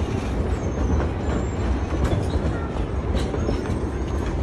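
Narrow-gauge passenger coaches rolling slowly past, wheels rumbling steadily on the rails with a few sharp clicks over the track.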